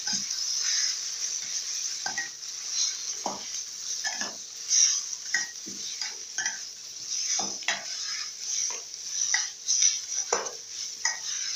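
Metal spatula scraping and stirring chopped chicken and chili paste in a stainless steel pan, with irregular scrapes about once or twice a second. The food sizzles steadily underneath as it fries.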